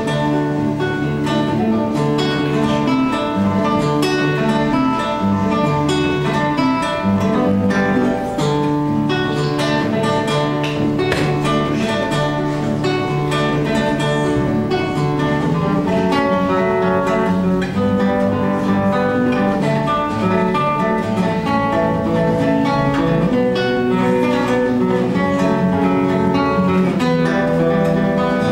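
Instrumental music played on a guitar, a solo piece performed live.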